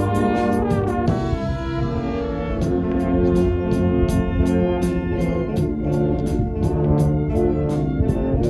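Marching band playing: brass ensemble carrying the tune over drums and cymbals that keep a steady beat of about four hits a second. About a second in, the percussion drops out for a moment while the brass slides downward, then the beat comes back in.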